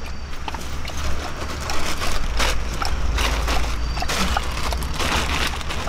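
Plastic dog bowls clattering as they are set down on a table, then the crinkling and rustling of a plastic bag of dog food being handled. Irregular clicks and taps run through it over a steady low hum.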